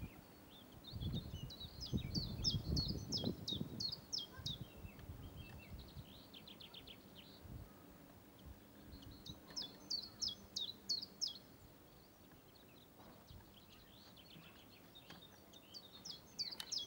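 Songbirds singing in several phrases, each a quick run of high, sharply falling notes, with pauses between. A low, fluctuating rumble sits under the first phrase.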